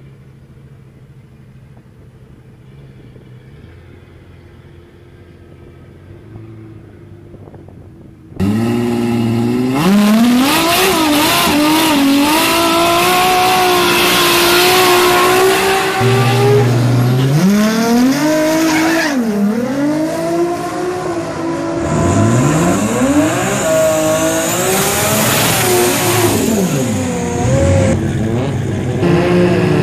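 Turbocharged Toyota 1JZ-GTE straight-six drag cars at full noise: engines revving hard and bouncing off the limiter through a tyre-smoking burnout, then launching with the pitch climbing and dropping at each gear change. A quieter, steady engine hum comes first and gives way suddenly to the loud running about eight seconds in.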